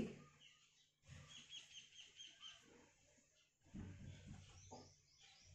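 Near silence with a faint bird chirping a quick run of short, even notes. Soft low bumps follow after about three and a half seconds.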